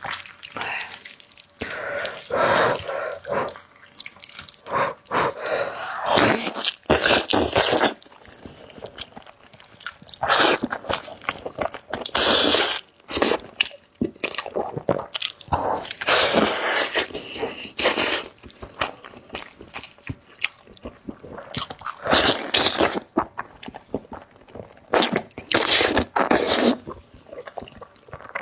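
A person biting and chewing braised pork knuckle close to the microphone, with irregular bursts of chewing and short pauses between bites.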